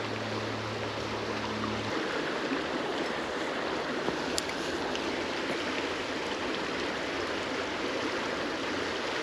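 Creek water running steadily over rocks, an even rushing wash. A low steady hum is heard for about the first two seconds, then stops.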